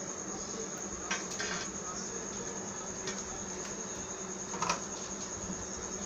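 A steady high-pitched whine, with a few light clicks and taps about a second in and again near the end, as the opened laptop adapter's board and cable are handled.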